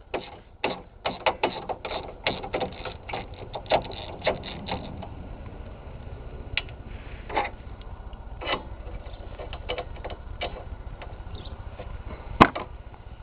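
Ratchet wrench clicking while working a stuck bolt on the car's front end: quick, uneven clicks for about five seconds, then slower scattered clicks, and one sharp, loud metallic knock near the end.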